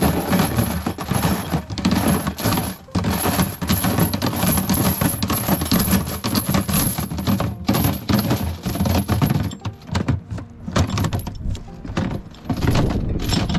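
Continuous clinking and rattling of metal over a low rumble, with a few brief pauses.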